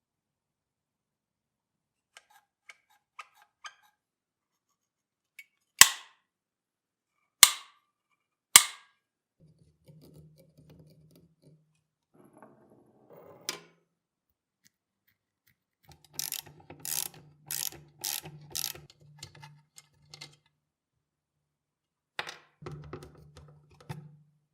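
Three loud, sharp metallic strikes a second or so apart, among lighter clicks, then stretches of a low hum with quick clicking and rattling on top, twice. These are workshop sounds of work on the old hammer drill's metal parts.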